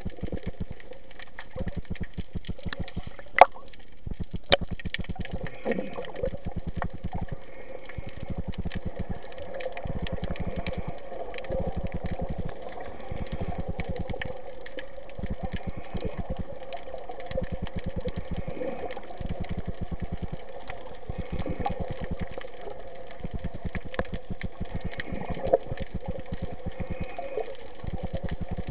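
Underwater noise picked up by a camera in its waterproof housing while snorkeling: a steady muffled water rush with dense fine crackling, swelling and easing about every two seconds. A few sharp clicks stand out, the loudest about three seconds in.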